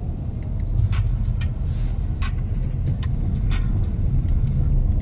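Steady low in-cabin rumble of a Chevrolet Onix driving slowly through city traffic, with scattered light clicks and ticks.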